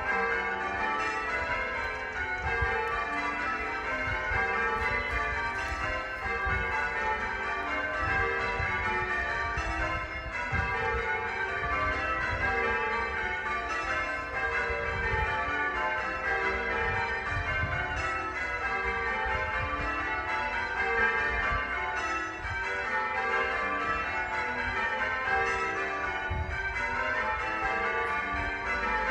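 Church bells ringing continuously: several bells struck in quick succession, their tones overlapping in a steady, unbroken peal.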